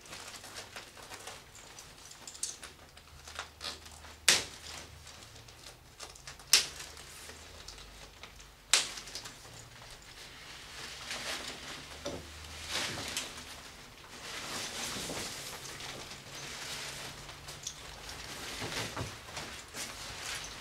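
A shiny PVC raincoat being unfastened and taken off: three sharp clicks about two seconds apart while the front is undone, then crinkly rustling of the plastic as the coat is slipped off.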